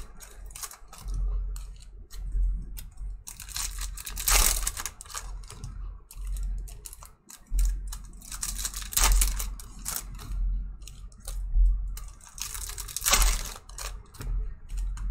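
Foil trading-card pack wrappers crinkling and being torn open by hand, with cards clicking and shuffling between the fingers. Two louder rips come about four seconds in and near the end.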